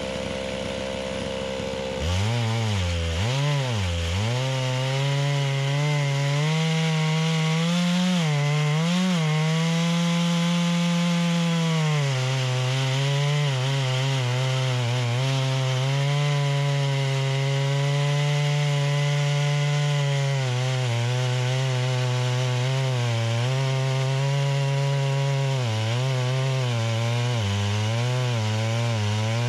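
Holzfforma G660 two-stroke chainsaw, a clone of the Stihl MS660, running in a chainsaw mill and ripping a pine log lengthwise into slabs. About two seconds in it gets louder as it opens up, its pitch dipping and wavering as the chain loads in the cut, then holding steady under load, with another brief wobble near the end.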